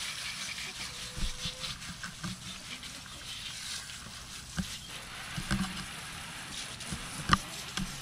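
Garden hose spray nozzle spraying water into a gutted saugeye to rinse out its body cavity, a steady hiss and splatter of water. A few light knocks sound through it, the sharpest about seven seconds in.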